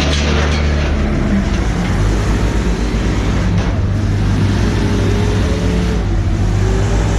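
Motor vehicle engine running on the road with a steady drone, its note shifting slightly about a second in.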